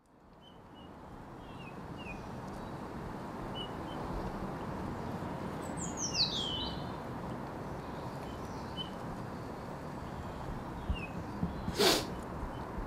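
Birds chirping outside over a steady background hiss that fades in from silence, with one loud falling chirp about six seconds in. A short, sharp noise near the end is the loudest moment.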